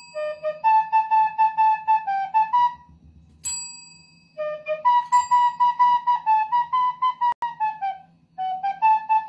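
A desk bell dings, and each ding is answered by a short tune played on a small flute in quick, clear notes. The bell rings again about three and a half seconds in, followed by a longer run of notes, and a third phrase starts near the end.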